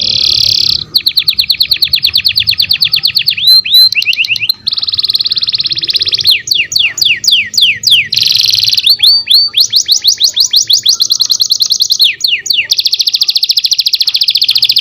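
Domestic canary singing: long, very fast trills of repeated high notes, broken several times by runs of slower notes that each sweep downward.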